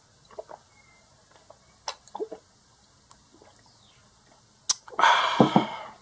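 A person drinking water from a glass: a few soft swallows, a sharp click as the glass is set back down on the table, then a loud breathy exhale.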